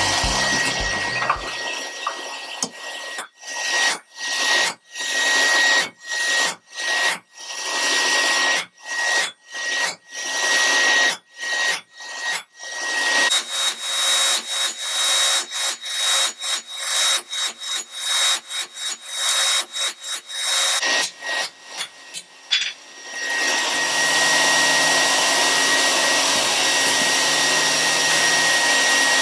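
Rough, rhythmic scraping strokes, about two a second, coming quicker past the middle, then giving way to a steady hiss a few seconds before the end.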